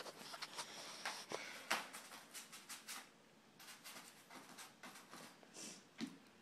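Faint handling noise from a phone held close: scratchy rustling and quick clicks, thick for the first three seconds, then a few scattered ticks.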